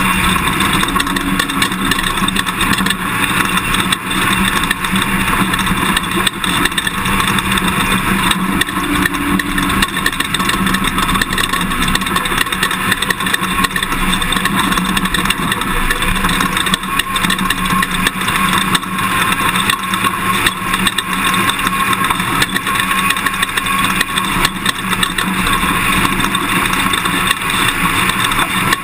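Toyota Tundra pickup truck driving off-road: steady engine and tyre noise, with frequent knocks and rattles from the rough ground.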